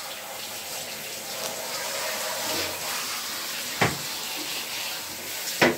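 Handheld shower running steadily, its spray rinsing a wet dog in a bathtub, with two sharp knocks in the second half.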